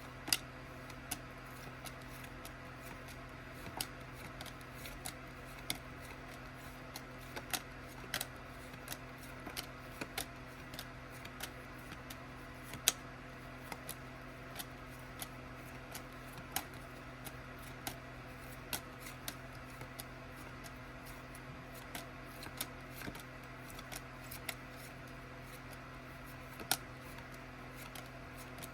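Quiet room tone with a steady low hum and many faint, irregularly spaced clicks, a few every second.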